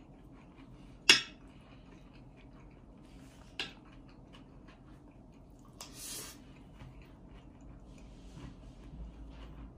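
Porcelain spoon clinking against a porcelain plate while scooping fried rice: one sharp clink about a second in, a lighter one a couple of seconds later, and a short scrape around six seconds.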